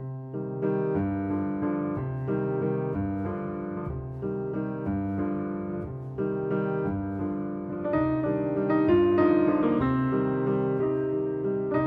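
Background piano music: a keyboard playing a gentle melody over chords, notes changing about every half second.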